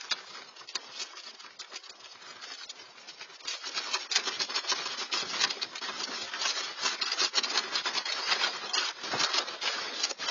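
Dense rattling and creaking from things shaking in an earthquake, growing louder about three and a half seconds in.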